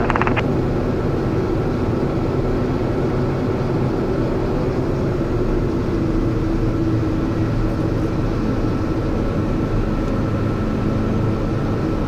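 Piper Meridian M500's Pratt & Whitney PT6A turboprop running at low power on the ground, propeller turning: a steady, even drone with a few held tones.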